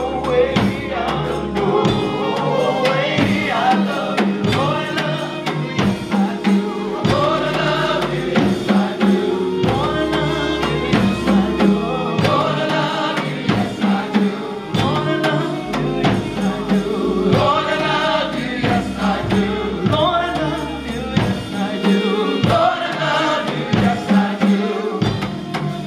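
Live gospel music: a choir singing over a band with bass and a steady percussive beat.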